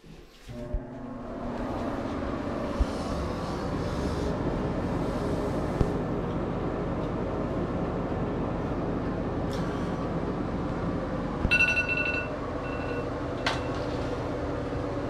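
Bathroom exhaust fan switching on with a click and spinning up over about a second, then running with a steady hum. A short electronic beep sounds about eleven and a half seconds in.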